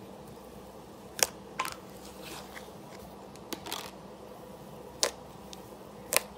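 Cloud slime being poked and stretched by fingers, giving about half a dozen sharp little pops and crackles, the loudest about a second in and near the end.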